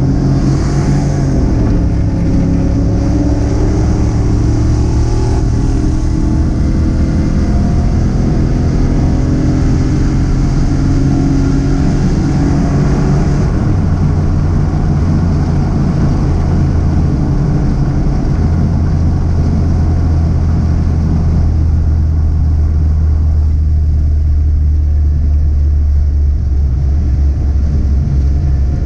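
Car engine and exhaust running steadily under way, its note stepping down in pitch a few times as the speed or gear changes.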